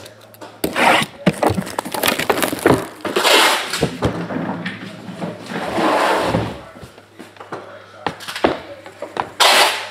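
Cellophane shrink-wrap crackling and crinkling as it is torn and pulled off a trading-card hobby box, with a few knocks of the box being handled.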